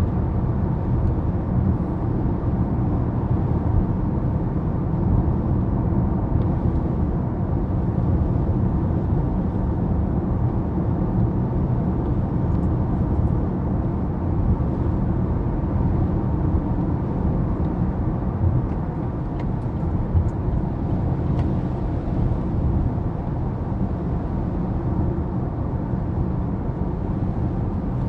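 Steady low rumble of a motor vehicle running, unchanging throughout, with no distinct events.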